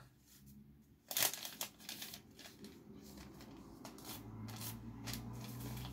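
Packaging being handled: rustling and crinkling with scattered light clicks. A low steady hum comes in about four seconds in.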